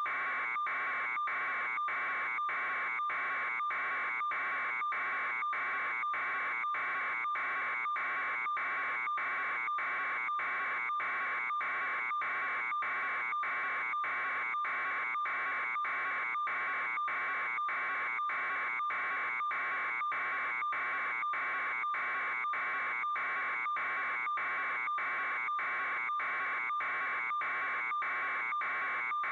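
An electronic alarm tone pulsing evenly about twice a second at a constant level, without a break.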